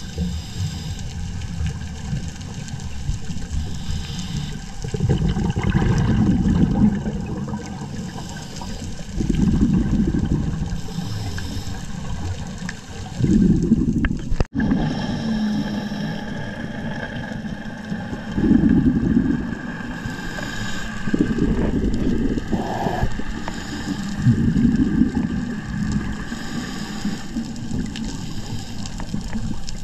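Scuba regulator breathing heard underwater: a steady low rumble with a louder surge of exhaled bubbles gurgling out about every four seconds.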